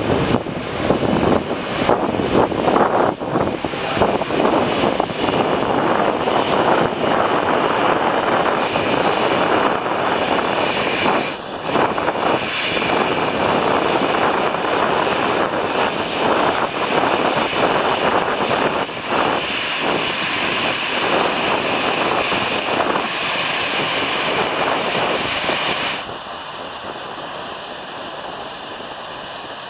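Twin jet engines of an Airbus A320 running at taxi power as the airliner taxis in: a steady rushing noise with a high whine over it. The level drops off clearly about four seconds before the end.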